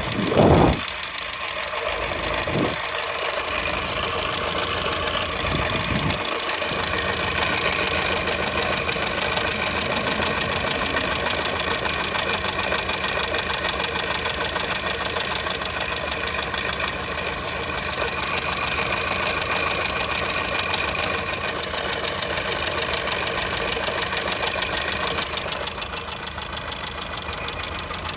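2002 Škoda Fabia engine running steadily with a fast, even knock. This is the knock whose cause the owner is asking about. A few short low thuds come in the first few seconds.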